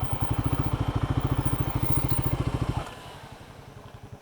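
Royal Enfield Guerrilla 450's single-cylinder engine running with an even, rapid exhaust pulse. Its sound drops sharply and carries on much quieter about three seconds in.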